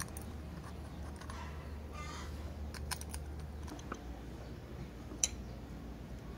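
Scattered light metal clicks and taps as bolts and small tools are handled on a CNG regulator housing, with a sharp click about five seconds in, over a steady low hum.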